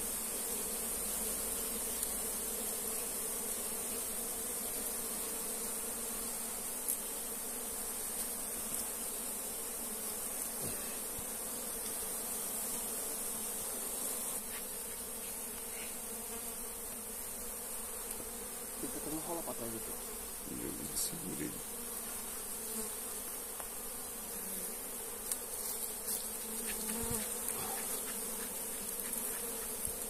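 A swarm of honey bees buzzing in a dense, steady hum over the opened log hive and its exposed comb, with a steady high hiss above it.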